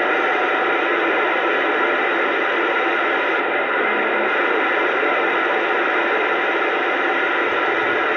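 AM CB radio on channel 28 (27.285 MHz) hissing with steady static from its speaker. The channel is open, with no station transmitting, only band noise.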